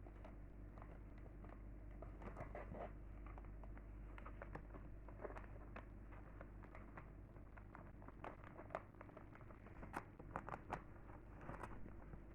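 Potato chips crunching and crinkling: an irregular run of small crackles and clicks, with a cluster of louder sharp snaps about ten seconds in.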